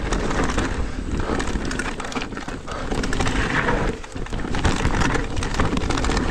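Cube Stereo Hybrid 160 electric mountain bike ridden fast down a rough trail: continuous tyre and ground noise with a dense clatter of small knocks and rattles from the bike, easing briefly about four seconds in.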